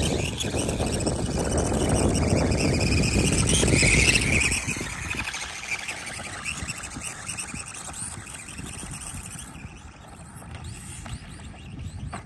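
Electric motor of a SkyRC SR5 1/4-scale RC dirt bike whining as it revs, its rear tyre throwing loose dirt, with a loud rushing noise for the first four seconds or so. After that the whine is much fainter and rises and falls as the bike rides farther off.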